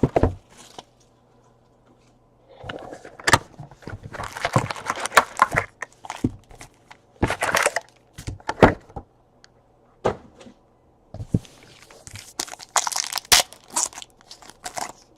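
Plastic trading-card wrappers crinkling and tearing, in irregular bursts with short pauses, as a box and its packs are opened.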